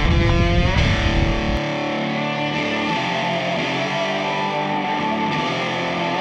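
Background rock music led by distorted electric guitar, with a sliding phrase near the start; the heavy low end drops out about a second and a half in.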